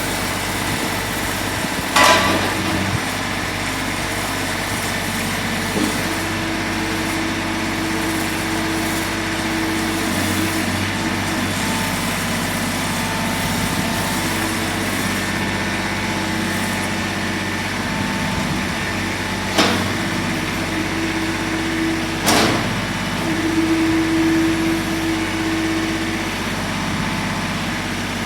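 Kubota B21 backhoe loader's three-cylinder Kubota diesel running steadily, with a few sharp knocks, about two seconds in and twice near the end, and a steady higher tone that comes and goes over the engine.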